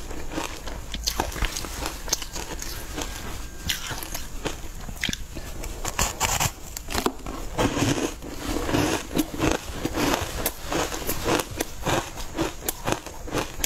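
Close-miked eating: biting into and chewing a soft, green powder-coated cake, with many short wet mouth clicks and smacks. These come thickest from about six seconds in.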